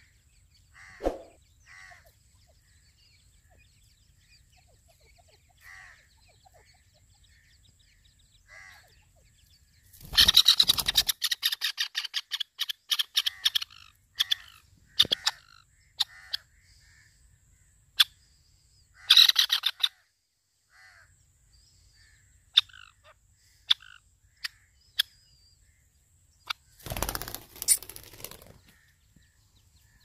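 Grey francolin chicks peeping softly and repeatedly. About ten seconds in comes a loud, harsh, fast-repeated bird call lasting a few seconds, with a shorter burst of it later. Sharp clicks are scattered through the middle, and there is a brief rustle near the end.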